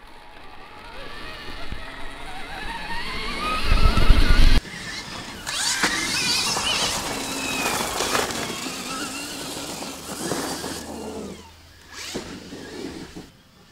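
Stark Varg electric motocross bike's motor whining, rising steadily in pitch as it accelerates away, with a loud low rumble that cuts off suddenly about four and a half seconds in. Then the bike passes on the dirt track several times, its whine rising and falling over tyre noise.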